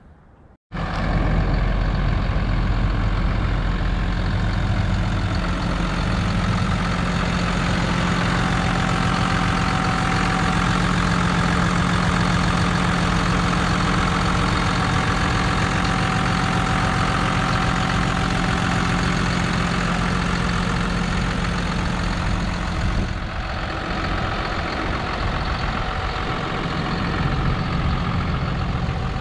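A 2018 Hino 268 box truck's inline-six diesel engine idling steadily. A steady hum in the running sound drops away about three-quarters of the way through, and the engine is a little quieter after that.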